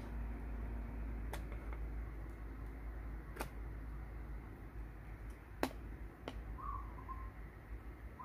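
A small DC computer cooling fan hums faintly on USB power, then stops about a second in with a click as the USB plug is pulled. Sharp plastic clicks and taps of USB plugs and testers being handled follow, the loudest about two-thirds of the way through.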